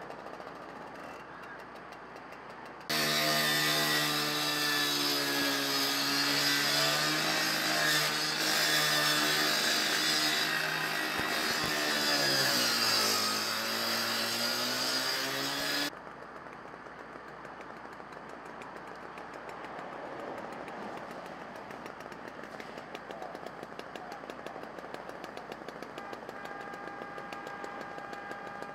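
A small high-revving gasoline engine, like a firefighter's power saw, starts suddenly about three seconds in and runs loudly with a whine and hiss for about thirteen seconds. Its pitch sags and recovers once, as if under load, before it cuts off abruptly. A lower steady engine hum and hiss follows.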